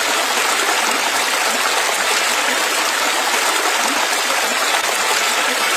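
Steady sound of running water, like a small stream or waterfall, at an even level throughout.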